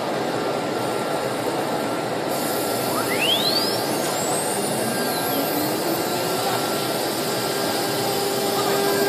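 The spindle of a 1325 CNC router spins up about three seconds in, with a whine that rises steeply in pitch, then settles into a steady high hum near the end. A constant noisy din from the surrounding hall runs underneath.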